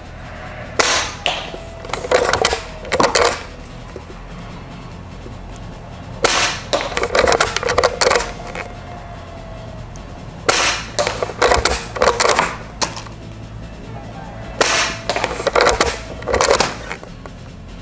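Elite Force Legends Saddle Rifle, a CO2-powered shell-ejecting lever-action airsoft rifle, fired and cycled four times a few seconds apart. Each time there is a sharp pop of the shot and a quick run of clacks as the lever is worked to eject the shell and chamber the next one.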